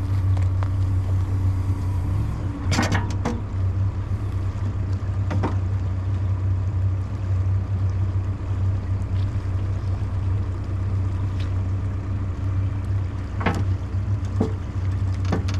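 Diesel engine of a CAT 420F backhoe loader running steadily, with a few short knocks scattered through.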